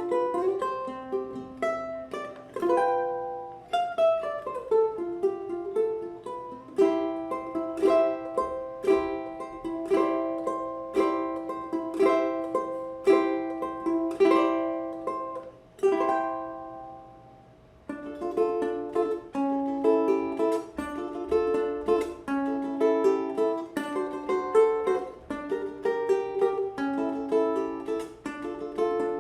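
Ohana tenor ukulele strung with D'Addario EJ88T Nyltech strings, played solo as a run of plucked melody notes and chords. About 16 seconds in, a note is left to ring and fades away for a couple of seconds before the playing picks up again.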